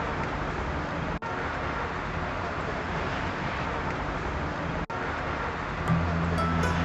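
Busy street ambience with traffic noise, a steady hiss and rumble that cuts out for an instant twice. Near the end, music with a low held note and sharp clicking percussion comes in.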